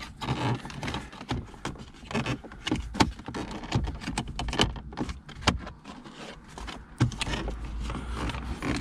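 Hard plastic car interior trim clicking, knocking and rattling as the centre console's gear lever surround panel is worked loose by hand. The knocks come irregularly, a few sharper than the rest, over a low rumble.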